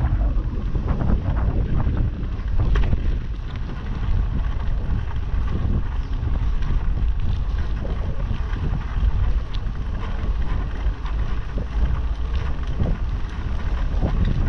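Wind buffeting the microphone of a camera on a moving bicycle: a steady low rumble, with small knocks and rattles scattered through it as the bike rolls over cracked asphalt.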